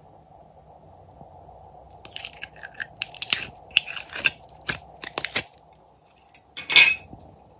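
Glossy slime being pulled from a plastic mold and squeezed in the hand: a run of sticky crackles and pops starting about two seconds in, then one louder pop near the end.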